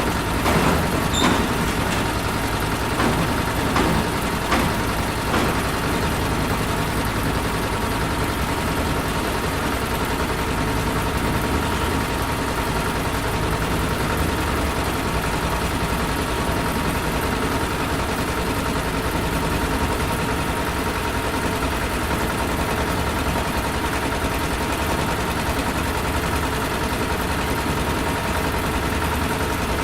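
Large factory engines running steadily: a continuous heavy machine rumble with a steady hum, with a few sharp knocks in the first five seconds.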